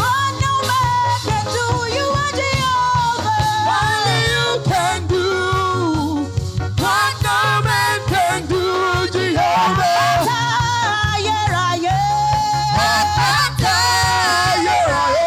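Gospel praise music: singing over a band with bass and drums, with a long held note near the end.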